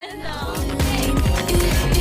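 Background pop music with a steady beat, fading in at the start.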